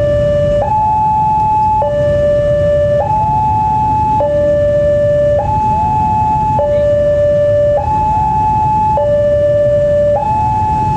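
Railway level-crossing warning alarm sounding its two-tone electronic signal, a higher and a lower tone alternating about every 1.2 seconds, warning of an approaching train. A low rumble runs underneath.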